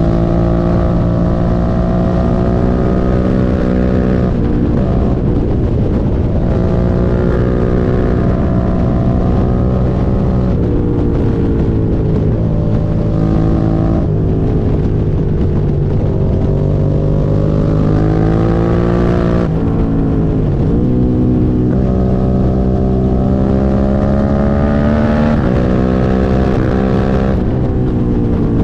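Suzuki SV650's 645 cc V-twin engine running under way. Its note climbs slowly and drops suddenly several times, as through gear changes. This bike has a misfire.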